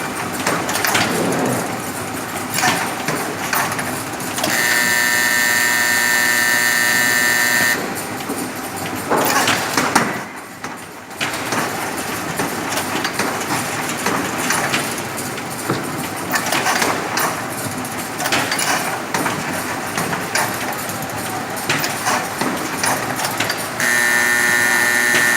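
Semi-automatic folder-gluer running, a steady mechanical clatter with rapid clicking. A steady high-pitched tone sounds for about three seconds around five seconds in, and again near the end.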